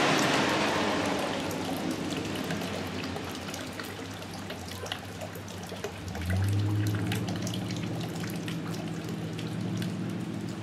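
Rain falling, with many separate raindrops hitting the ground; the rush of water is heaviest at the start and eases off. About six seconds in, a steady low hum begins under the rain.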